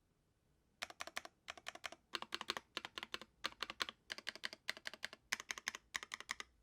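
Typing on a Noxary 380 custom mechanical keyboard with Strawberry Milk linear switches, an aluminium plate and GMK keycaps: quick runs of key presses starting about a second in, each run a rapid cluster of clacks.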